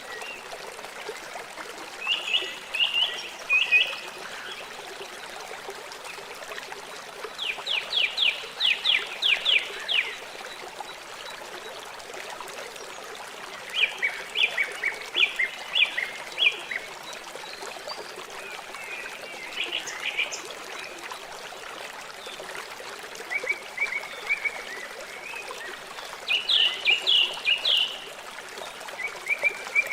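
River water flowing in a steady rush. Over it a bird sings short phrases of rapid, repeated high notes, seven times, a few seconds apart.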